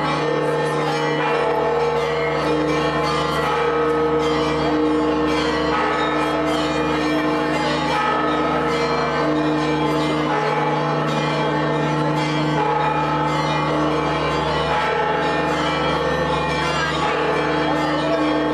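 Church bells pealing continuously, many strokes overlapping into a steady, ringing wash of tones.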